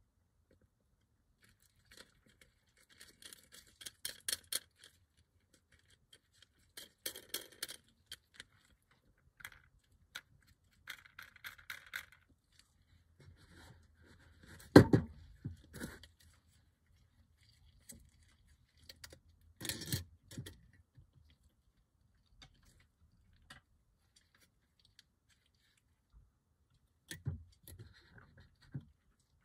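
Small clicks, light rattles and scrapes from handling the parts of a disassembled M2 Machines Mercury Cougar diecast model: its plastic chassis with wheels and its metal body. The sounds come in short clusters, with one sharp knock about halfway through.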